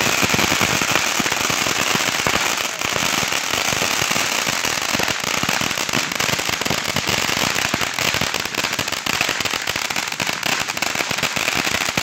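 A crackling firework spraying sparks: a dense, unbroken run of rapid pops and crackles over a steady hiss.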